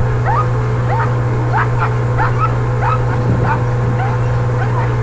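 Dog whining and yelping in short, high, rising cries, about two a second, over a steady low hum.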